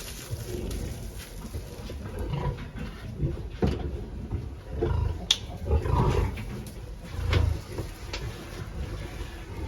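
Pigs grunting in irregular low bursts, loudest around the middle and about three-quarters through, with scattered knocks and a sharp clack about five seconds in.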